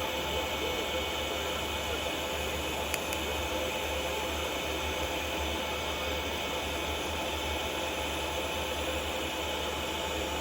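TIG welding arc from a PrimeWeld TIG225X on thin-wall titanium exhaust tubing: a steady hiss with a low electrical hum underneath.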